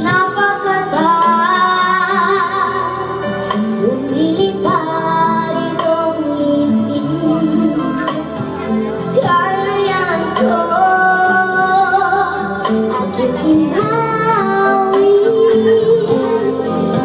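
A child singing a song in a high voice over backing music, holding some long notes.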